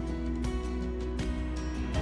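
Instrumental background music with sustained notes and no voice.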